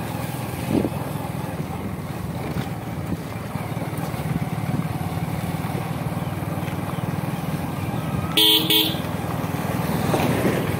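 Motorcycle engine running steadily while riding on a gravel road, with a vehicle horn honking twice in quick succession about eight seconds in.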